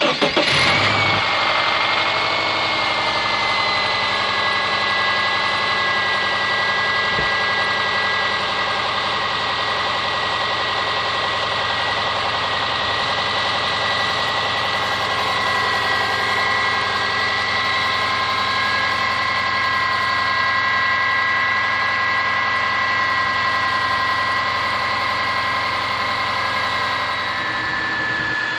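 Subaru Forester SG5's EJ25 2.5-litre flat-four catching right at the start and settling into a steady idle, with a steady high whine over it. This is the engine knock its owner complains of.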